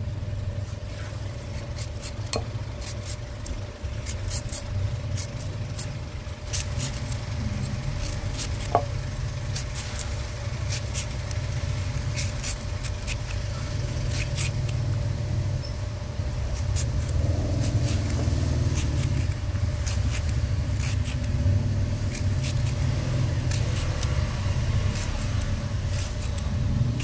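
Knife shaving crisp slices off green mangoes into a bowl: a string of short, sharp cutting sounds at an uneven pace. Under it a steady low rumble grows louder in the second half.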